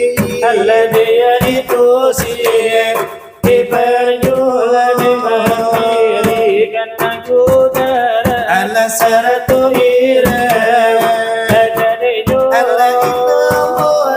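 Salawat dulang: male voices singing devotional verses while the singers beat large brass trays (dulang) with their hands, sharp metallic strikes keeping the rhythm under the song. The singing dips briefly a little over three seconds in.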